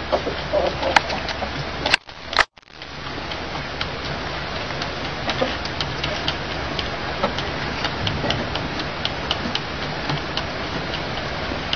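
Rooster pecking at a spoked wheel, its beak striking in quick, irregular sharp clicks over a steady hiss. The sound drops out twice, briefly, about two seconds in.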